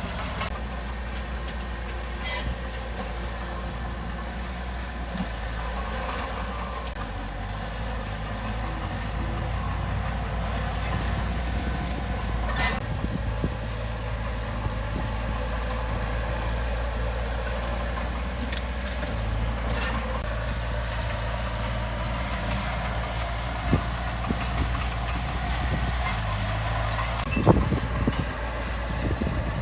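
Heavy diesel earthmoving machinery running steadily, a low engine drone with a few sharp knocks along the way.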